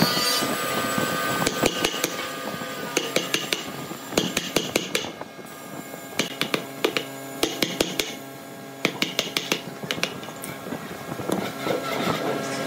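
Hammer striking a wood chisel as it cuts a notch into a round wooden pole and splits off chips: sharp taps in quick runs with short pauses between them.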